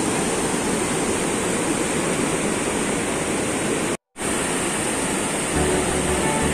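Rushing water of a rocky stream and small waterfall, a steady roar of white water pouring over boulders. The sound cuts out completely for a split second about four seconds in, and a faint low hum joins near the end.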